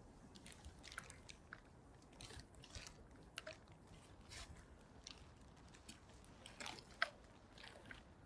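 Faint handling noise: scattered small clicks and rustles, a little louder about seven seconds in, over near silence.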